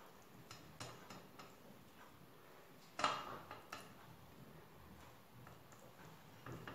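Light, scattered clicks and clinks of a metal spoon against a glass as lemon juice is scooped out of it and drizzled onto a sponge cake layer, with one sharper clink about three seconds in.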